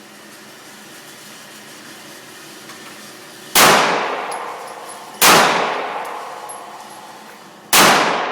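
Three 9mm handgun shots, about 3.5, 5 and 8 seconds in, each loud crack followed by a long echoing decay.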